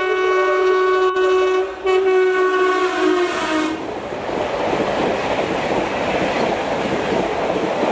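A WAP-5 electric locomotive's horn blowing a long, loud chord with a brief break near two seconds in, its pitch dropping as the locomotive passes and the horn stops. Then the steady rushing noise of high-speed coaches going by, their wheels running over the rails.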